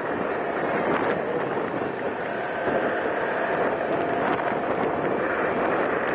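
Steady wind rush on the microphone with road and engine noise from a moving motor scooter.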